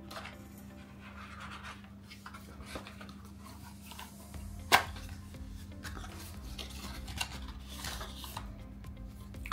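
Handling of a small cardboard accessory box: scratchy rubbing and sliding as it is lifted out and opened and a white wall charger is slid out of it, with one sharp tap about halfway through.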